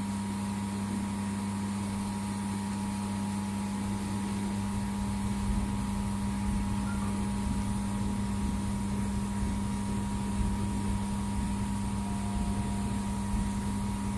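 Steady electrical hum and hiss of a 2000 W fibre laser welding machine running, with a rougher low rumble joining in about four seconds in.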